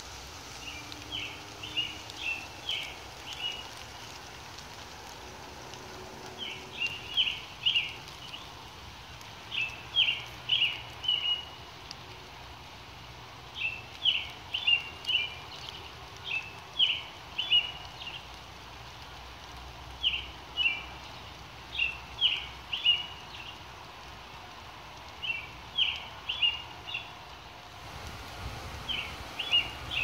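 A songbird singing short phrases of a few quick high notes, repeated every few seconds, over the steady hiss of light rain falling on leaves.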